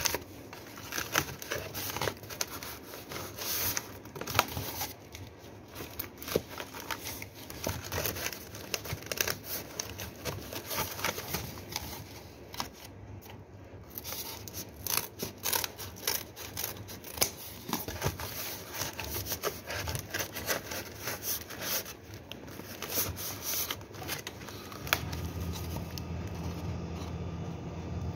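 Plastic water bottles and cardboard being handled and fitted into place: irregular crinkling, scraping and clicking. About 25 seconds in, a steady low hum starts.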